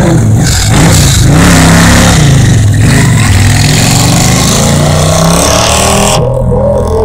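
Stock Victory bagger's V-twin engine revving up and down through a burnout, with the rear tyre spinning against the pavement and making a loud hiss. About six seconds in the hiss drops away abruptly, leaving the engine's rumble.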